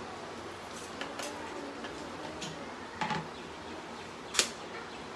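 Quiet kitchen handling with a few light knocks, then a single sharp crack about four seconds in as an egg is struck with a kitchen knife to break it.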